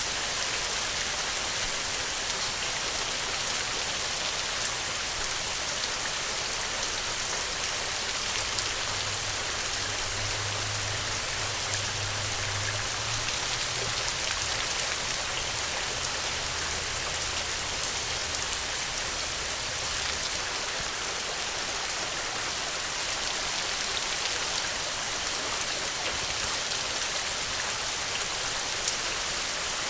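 Steady rain falling, with individual drops pattering on a surface. A low hum sits underneath from about eight seconds in until about twenty seconds in.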